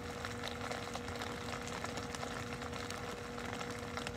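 Steady background hum with a faint, unchanging tone running through it, and no sudden sounds.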